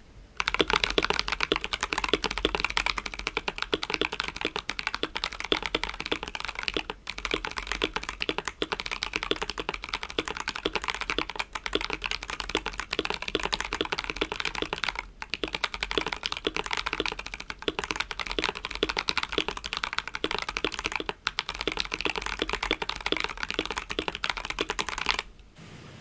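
Fast typing on a KBD67 R3 mechanical keyboard with a blue acrylic case and Durock T1 tactile switches (67 g springs, lubed and filmed): a dense, steady patter of keystrokes with a few short breaks. The typing stops near the end.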